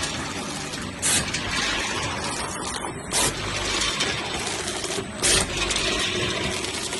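Measuring-cup vertical form-fill-seal packing machine running, a steady mechanical clatter with a short loud burst of noise about every two seconds, three times, repeating with the machine's cycle.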